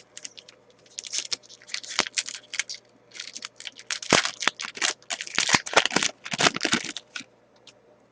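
A foil pack of 2005-06 SP Authentic hockey cards being torn open, its wrapper crinkling in a run of short crackles with a brief pause partway through.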